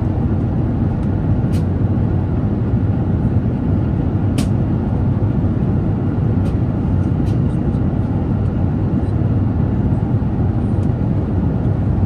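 Steady airliner cabin noise of an Airbus A350 at cruise: an even low rumble of engines and rushing air, heard from inside the cabin, with a few faint clicks.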